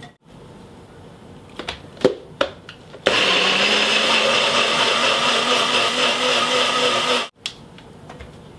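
A few clicks and knocks as the cup is set on a NutriBullet, then the NutriBullet blender motor runs steadily for about four seconds, blending young coconut flesh with its water, and cuts off suddenly.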